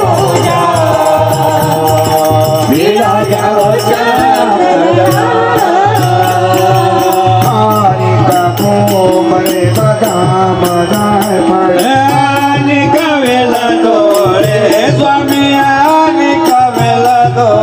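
Devotional aarti sung live into a microphone, with harmonium, tabla and small hand cymbals (manjira) keeping a steady beat.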